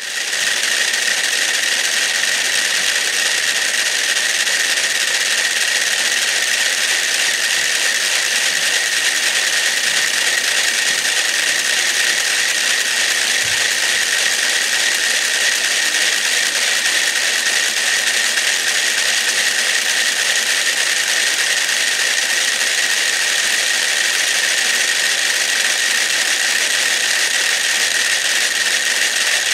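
About a hundred mechanical pendulum metronomes ticking at once, still out of step with one another, so their clicks merge into a dense, continuous clatter with no single beat.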